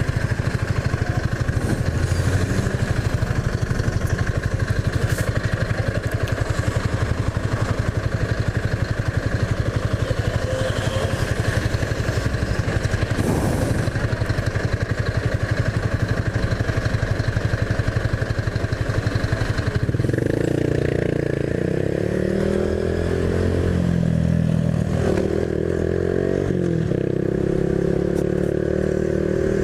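Honda Biz 125's single-cylinder engine running under way, steady at first. About twenty seconds in it revs up with rising pitch, drops back near twenty-five seconds at a gear change, then climbs again.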